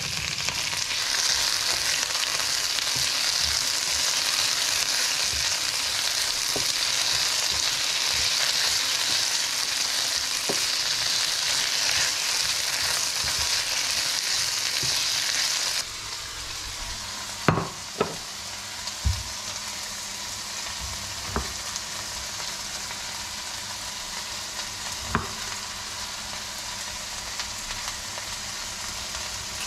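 Chicken and bell peppers sizzling steadily in a frying pan while being stirred with a spoon. About halfway through, the sizzle drops off abruptly and a chef's knife cuts a tomato on a wooden chopping board, making a few sharp knocks spaced a second or more apart.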